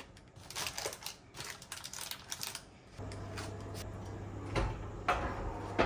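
Light clicks and scrapes of a silicone spatula against a paper-lined metal baking tray, then a steady low hum with a few knocks as the tray is slid onto an oven rack.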